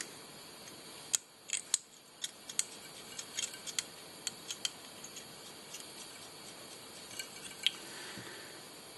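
Scattered light clicks and ticks, about fifteen of them at irregular intervals, from fingers, thread and tools handling a fly in a fly-tying vise.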